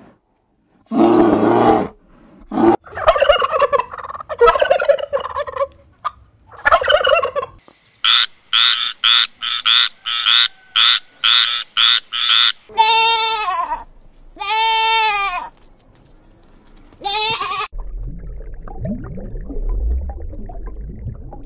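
A run of animal calls: an Asiatic black bear's growls at the start, then a frog croaking in about a dozen short, evenly spaced croaks, then two drawn-out calls falling in pitch, and a low rumbling noise near the end.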